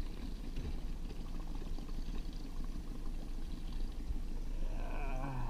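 Water noise around a small fishing boat over a steady low hum. A brief wavering voice-like sound comes near the end.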